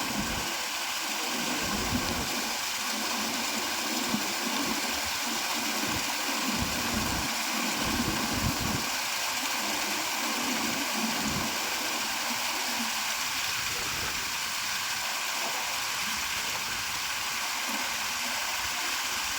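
Waterfall: a steady rush of falling water, with irregular low rumbles through the first half.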